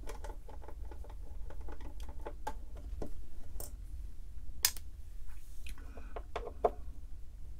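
Small, irregular clicks and ticks of case screws being backed out by hand and handled on the terminal's bottom panel, with one sharper click about halfway through, over a low steady hum.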